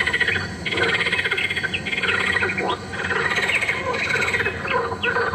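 Small birds chirping over insects trilling: many short, overlapping chirps that slide up or down, laid over fast pulsing trills.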